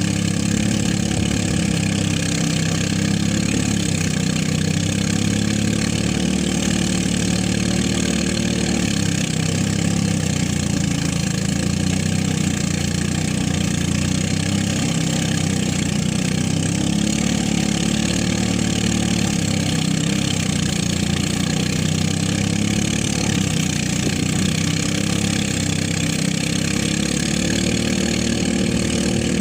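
Engine-driven rice threshing machine running steadily, its engine note dipping slightly every few seconds.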